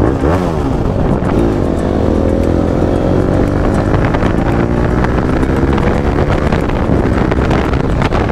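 TVS Apache RR310's single-cylinder engine running through an aftermarket Akrapovic-style slip-on exhaust with a dB killer fitted, accelerating at highway speed. The revs swing up and down briefly at the start, then rise steadily as the engine pulls through a gear, with wind rushing over the microphone.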